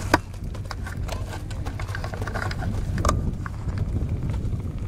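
Open-air background rumble with scattered clicks and knocks, a sharp knock right at the start and another about three seconds in.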